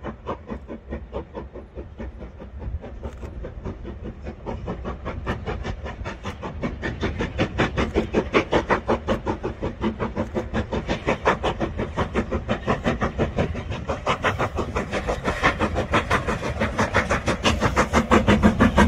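Steam train working across a viaduct, a fast, even run of beats from the locomotive and its wheels, growing steadily louder as it comes closer.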